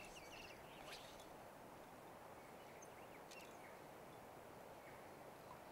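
Near silence: a faint steady outdoor hiss with a few faint bird chirps in the first second and again around three seconds in.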